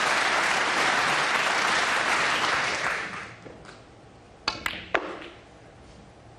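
Audience applause that dies away over about three seconds, then two sharp clicks of snooker balls about half a second apart: the cue tip striking the cue ball, then the cue ball hitting the blue.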